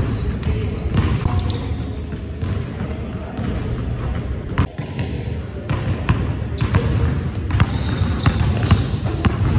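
Basketballs bouncing on a hardwood gym floor, a steady run of sharp thuds, with short high squeaks from sneakers on the court.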